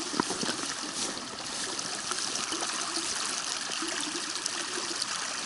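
Shallow creek trickling steadily over a bed of pebbles and small boulders, with small gurgles on top.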